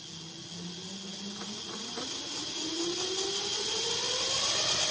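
The two electric motors of an eClimax class A locomotive truck spin up under a Sabertooth 2x60 motor controller as the throttle is opened. Their whine rises steadily in pitch and gets louder.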